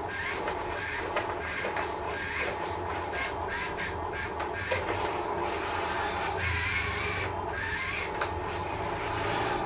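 Small RC dump truck's electric drive motor and plastic gears whining in short rising and falling bursts as it inches about, with light clicks and rattles over a steady low hum.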